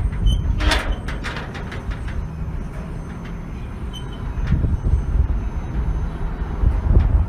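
Metal gate being moved, with a few sharp metallic clanks in the first second or so over a steady low rumble.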